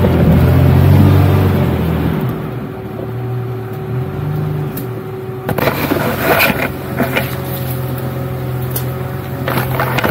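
Jeep Cherokee XJ engine working hard under load for the first two seconds, then easing to a lower steady note. From about halfway in, branches and leaves scrape and brush along the bodywork, loudest near the end.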